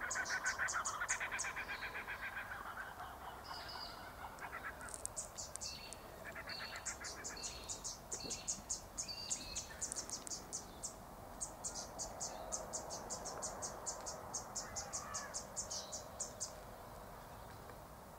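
Background animal chirping: long runs of rapid, high-pitched chirps, about five a second, with shorter lower, faster trills in the first two seconds and again about seven seconds in.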